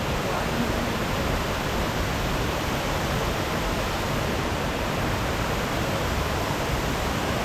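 Waterfall's water pouring down in a steady, unbroken rush.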